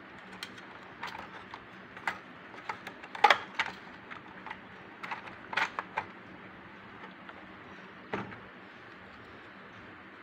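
Irregular light clicks and knocks from the parts of a homemade model combine harvester being handled, its header piece moved and tapped by hand, the loudest cluster about three seconds in, over a faint steady hum.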